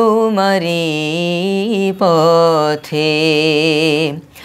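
Solo male voice singing a Bengali Islamic hamd without instruments, in several long held phrases with vibrato.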